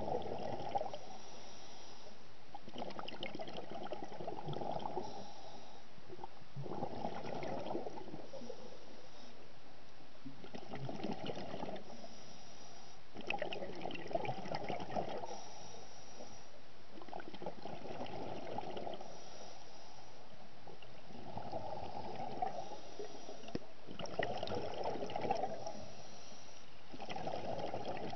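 Scuba diver's breathing through the regulator underwater: exhaled bubbles gurgle out in bursts about every three seconds, with quieter gaps between breaths.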